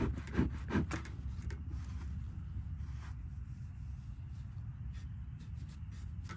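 Bee smoker bellows pumped in short puffs, about three a second, for the first second. Then comes a soft rustling of dry wood shavings as a handful is packed into the smoker's canister.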